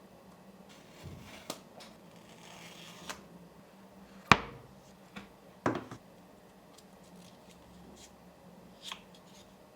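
Hands handling the paper and cardboard packaging of an Apple Watch box: scattered taps, clicks and rustles, with two sharper knocks about four seconds and nearly six seconds in.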